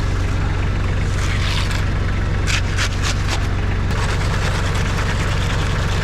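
Engine of a concrete mixer running steadily at a constant speed while concrete is discharged, with a few short sharp scrapes or knocks a little under halfway through.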